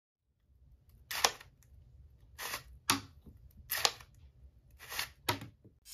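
Cardboard Glock 34 replica being worked by hand: its cardboard slide and mechanism snap with about six short, sharp clacks, some with a brief rasp just before.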